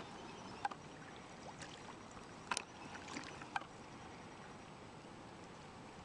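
A beaver diving and resurfacing in a pond: a few small, sharp splashes and drips of water in the first few seconds, then only a faint steady hiss.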